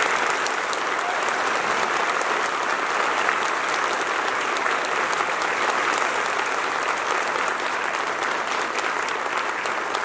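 A large audience applauding steadily: many hands clapping together in a dense, even wash.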